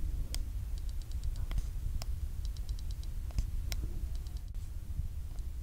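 Short runs of quick faint ticks and a few sharper single clicks from an iPhone 11's Taptic Engine vibration motor. These are the stray clicks of a faulty Taptic Engine.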